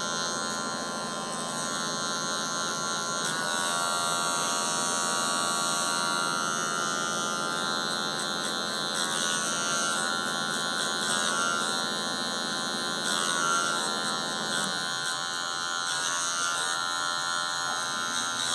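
Electric hair clipper running with a steady buzz as its blade cuts short hair at the nape for a fade.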